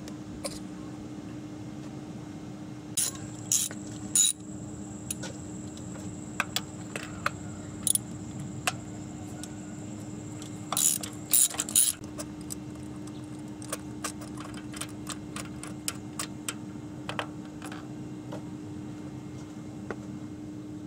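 Sharp plastic clicks and knocks as an ignition coil pack is unclipped and pulled from a 1997 Nissan Maxima's V6, then a run of lighter, quicker clicks from a hand ratchet backing out the spark plug. A steady low hum runs underneath.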